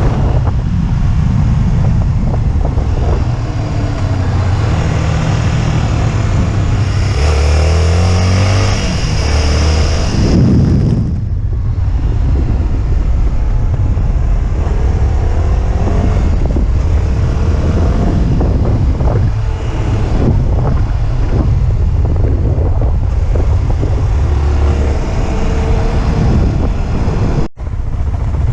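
Motorcycle engine running under way, its pitch rising and falling as the revs change, with wind and road noise. The sound cuts out for an instant near the end.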